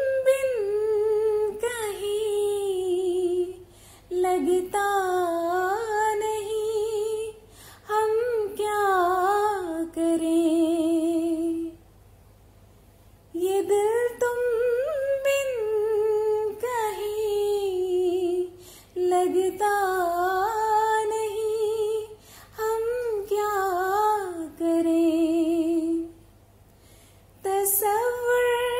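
A woman singing a slow melody solo, with no accompaniment, in long held phrases with vibrato. She breaks off twice for about a second and a half, near the middle and near the end.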